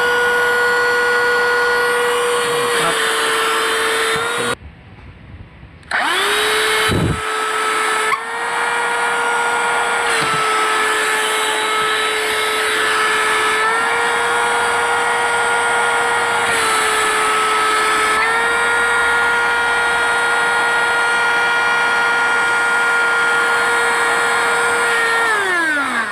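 Battery-powered handheld car vacuum cleaner's motor running with a steady high whine. It is switched off about four and a half seconds in, spins back up a second or so later with its pitch dipping slightly a few times, then winds down with a falling pitch as it is switched off near the end.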